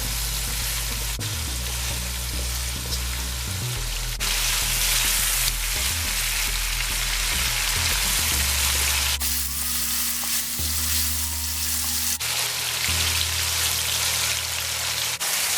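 Chicken pieces frying in hot oil in a wok: a steady, busy sizzle.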